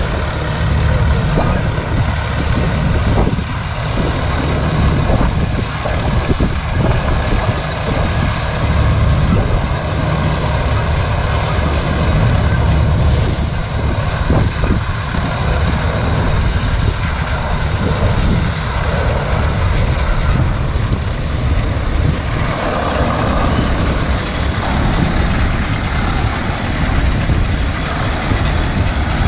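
1928 Holt Model 36 pull-type combine at work: its engine and threshing machinery run steadily, together with the crawler tractor pulling it.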